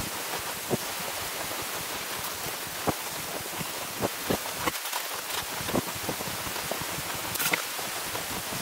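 Splitboard skinning through snow: a steady hiss with irregular crunches and clicks from the skins and bindings, the sharpest near the end.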